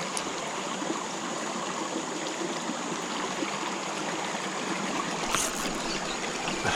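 Creek water running steadily over the stream bed, an even rushing noise, with a brief rustle about five seconds in.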